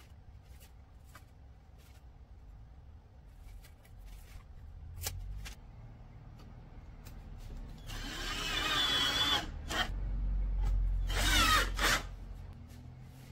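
Cordless drill driving wood screws through a table leg's base plate into the underside of a wooden tabletop: two runs of whirring with a motor whine, about eight and about ten seconds in, the second the loudest. A few faint clicks come before them.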